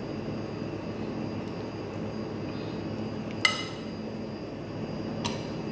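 A metal spoon clinks against a glass serving bowl twice while sauce is spooned over the dish: a loud, briefly ringing clink about three and a half seconds in and a fainter one near the end, over a steady background hum.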